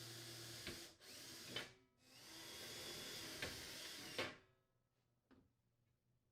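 Power drill with a 1/8-inch bit drilling pilot holes through the spacer bar mounting holes, faint. It runs in three spells: one stopping about a second in, a short burst, then a longer run that spins up and stops after about four seconds.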